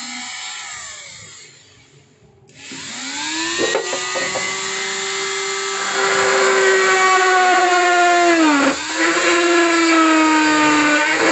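Flexible-shaft rotary tool motor winding down to a stop, then switched back on: it spins up to a steady high whine. About three quarters of the way through its pitch dips sharply and recovers as the bit bites into the plastic fender to drill holes.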